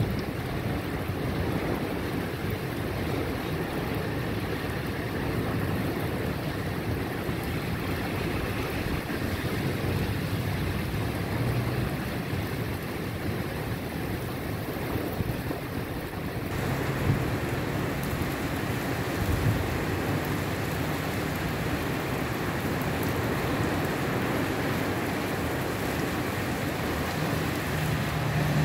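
Steady rain falling on a wet street, paving and puddles, with wind.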